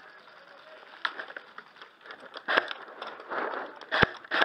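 An airsoft player's gear and clothing rustling and crackling while he moves, with three sharp cracks about a second and a half apart; the last is the loudest, with a low thump.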